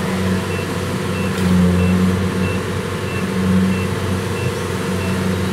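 Diesel engines of rice combine harvesters running steadily, the engine note swelling briefly twice. A short high beep repeats about every two-thirds of a second throughout, from a machine's warning beeper.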